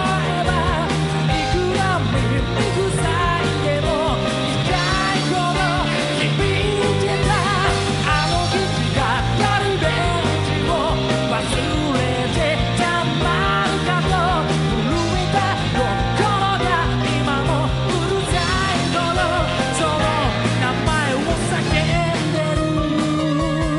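Rock band playing live with a lead vocal over drums, bass and guitars, the full band sounding steadily throughout.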